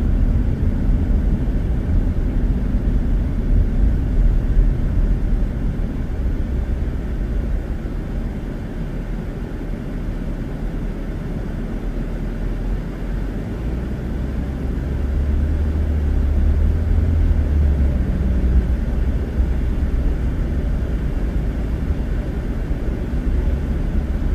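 A car driving on a highway: a steady low road and engine rumble that swells for a few seconds past the middle.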